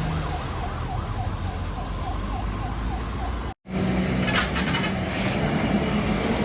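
A truck's telolet novelty horn sounding a siren-like warble, quick repeated up-and-down glides about three a second, over a running engine. It cuts off suddenly about halfway through; the engine drone then carries on, with a brief hiss about a second later.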